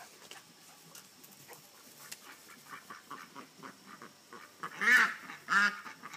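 Poultry calling: soft, quick clucking chatter, then two loud calls that rise and fall in pitch, under a second apart near the end.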